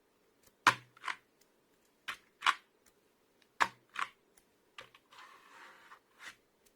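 Membrane computer keyboard keys tapped slowly, the clicks coming in pairs about every second and a half. About five seconds in there is a second of soft rustling, then a single click.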